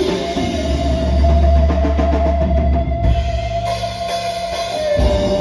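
Live rock band playing an instrumental passage through a PA: drum kit, electric guitar and keyboard, with one long held note over a steady bass pulse that steps down slightly near the end.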